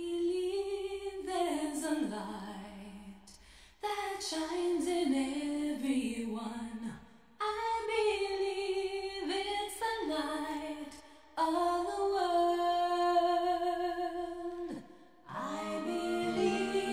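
Music: a woman's voice singing a slow melody, in phrases of about three to four seconds with short breaks between them.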